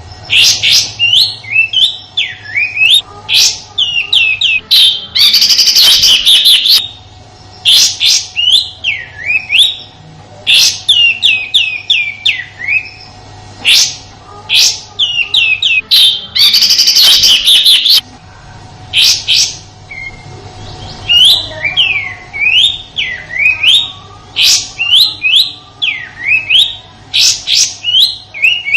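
Kapas tembak songbird singing its harsh 'tembakan' song: quick runs of sharp whistled notes sweeping up and down, broken twice by a louder rough, rasping burst. A faint steady hum runs underneath.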